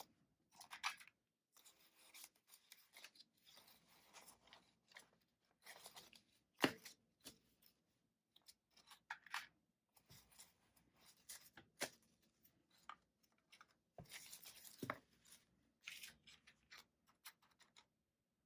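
Paper banknotes being handled and sorted: quiet, scattered rustles, flicks and crisp snaps of bills as they are fanned through and slid into a clear plastic cash-binder sleeve, with a few sharper snaps standing out.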